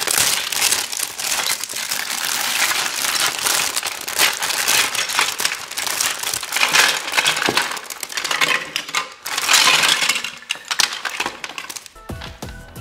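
Thin plastic bag crinkling and crackling as it is opened and handled. Background music starts near the end.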